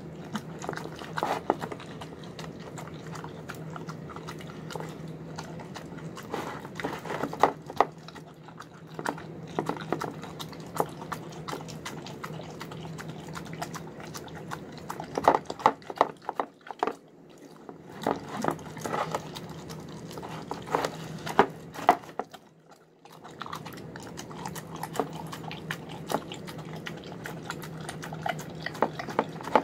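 A dog eating wet, sloppy food from a plastic bowl: continual wet chewing and smacking, with bursts of louder clicks as it bites and gulps.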